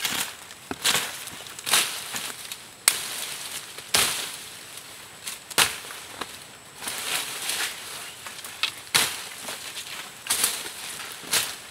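Dry undergrowth rustling and crunching in irregular bursts as plants, dead leaves and twigs are pulled and trampled by hand and boot, with a few sharp snaps of breaking stems.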